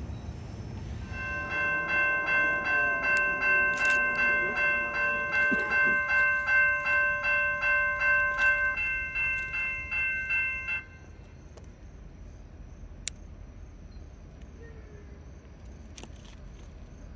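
Railroad grade crossing bell ringing about twice a second, starting about a second in and stopping abruptly near eleven seconds.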